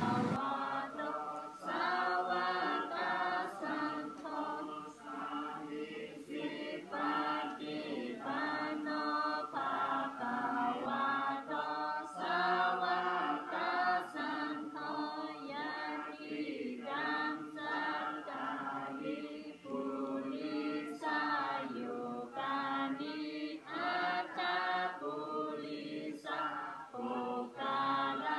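A group of villagers chanting Buddhist prayers together from prayer books, in a steady, sing-song recitation with short breaks between phrases.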